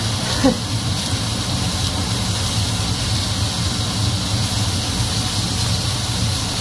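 Rib eye steaks sizzling in a frying pan over a gas burner on full flame: a steady frying hiss with a steady low rumble underneath, the meat searing at high heat.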